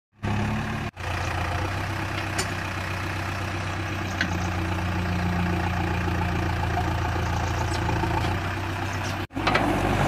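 JCB 3DX backhoe loader's diesel engine running steadily as the machine works, its note shifting a little about four seconds in, with a few faint clicks. The sound cuts out briefly about a second in and again near the end.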